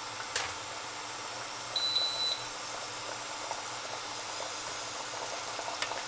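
Water with potato strips boiling in a stainless steel pot, a steady bubbling hiss. A short high electronic beep sounds about two seconds in, with a single click just after the start and a few light clicks near the end as a spatula goes into the pot.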